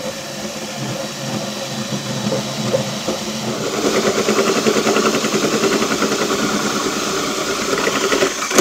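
Drill driving a 4-inch hole saw forward through the truck's steel bed floor, a steady motor hum with metal cutting noise that grows louder and chatters from about halfway, finishing the cut. The drill stops abruptly near the end.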